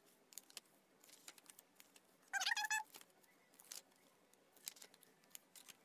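Paper journal pages being turned and handled: faint rustles and light taps. About two seconds in there is a brief high-pitched wavering tone lasting about half a second, louder than the page sounds.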